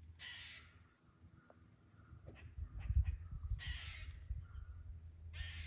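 Crows cawing in the woods: three harsh caws a few seconds apart. A low rumble on the microphone peaks near the middle.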